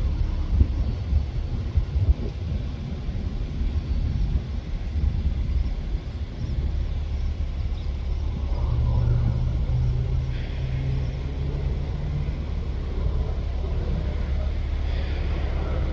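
Agricultural crop-dusting airplane's engine and propeller droning as it turns and comes back low over the field, over a heavy low rumble. A steadier engine hum stands out for a few seconds past the middle.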